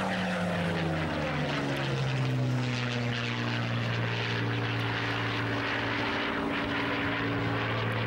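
Supermarine Spitfire's piston V12 engine droning as the fighter flies overhead. The pitch drops over the first two or three seconds as it passes, then holds steady as it climbs away.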